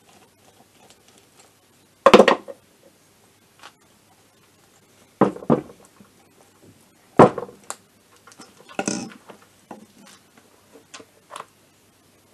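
Scattered knocks and clicks of metal and hard plastic as a scooter carburettor is unscrewed from the engine's intake and handled together with its plastic air box. The two sharpest knocks come about two seconds in and about seven seconds in.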